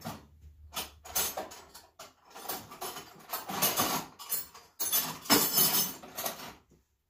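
Metal tools or parts clattering and clinking as they are handled and rummaged through on a workbench, in irregular bursts that stop shortly before the end.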